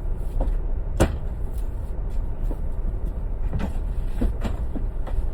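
Steady low rumble of an airliner cabin in flight, with several knocks and clunks, the loudest about a second in.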